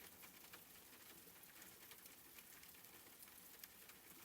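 Faint background rain: a soft steady hiss with scattered light drop ticks.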